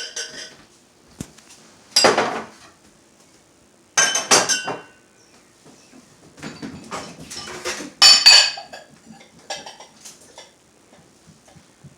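Dishes clinking and clattering as they are taken out of a dishwasher and put away: several separate clanks of plates and glasses, some with a short ring, and lighter rattling between them.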